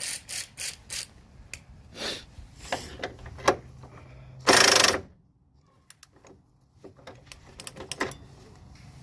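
Impact gun working on a stuck nut in short bursts, with a longer, louder burst about halfway through. The nut does not break loose: the gun lacks the power.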